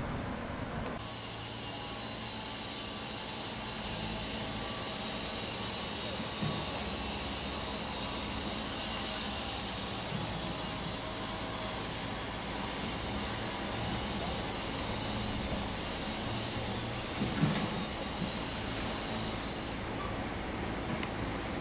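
Mobile crane running as it hoists a steel H-beam: a steady hiss over a low engine hum, with a short knock about 17 seconds in.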